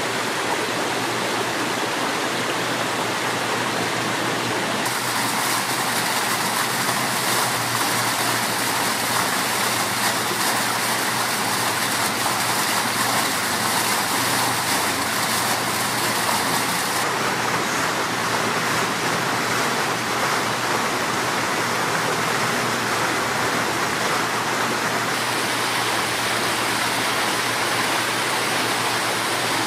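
Small bubbler fountains splashing into a shallow ornamental pond: a steady rush of falling water. The hiss grows brighter about five seconds in and duller again a little past halfway.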